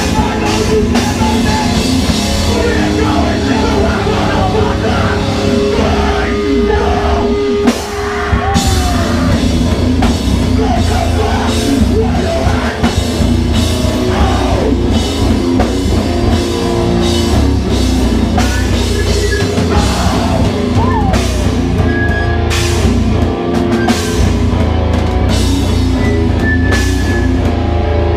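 Hardcore punk band playing live: distorted guitars, bass and drum kit with vocals. There is a short break about eight seconds in, then the full band comes back in.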